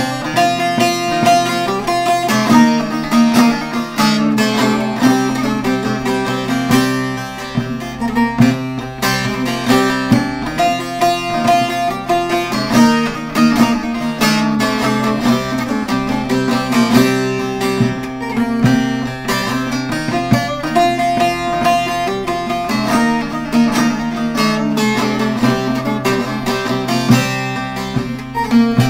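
Short-neck bağlama with a mulberry-wood bowl played solo: a folk tune picked in a continuous run of quick notes, with the drone of the open strings beneath.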